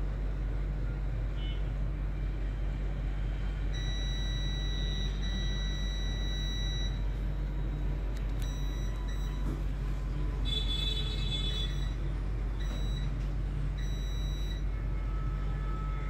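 Baba 850AD hot air rework gun blowing steadily, its blower running with a low hum under a noisy hiss, as it heats an IC to solder it onto a phone board. High, thin whistling tones come and go a few times.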